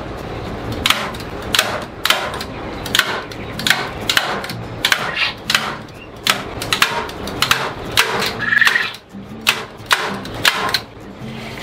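Sharp clicks and clacks, irregular, about one or two a second, from a hand tool and plastic and metal fittings as the water line and drinkers are fastened onto a quail cage.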